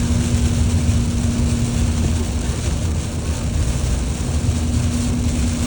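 Steady road and engine rumble inside a moving car, with a constant low hum and no change in speed.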